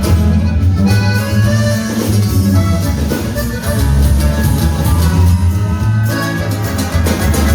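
Norteño band music without singing: a melody over a steady, heavy bass line and drums.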